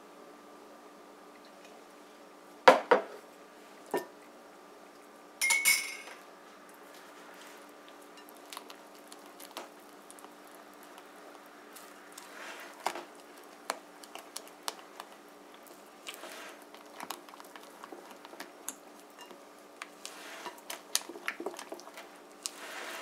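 Silicone spatula stirring thick cake batter in a glass bowl: soft squishing and scraping, with small clicks of the spatula against the glass. A couple of sharper knocks come in the first few seconds.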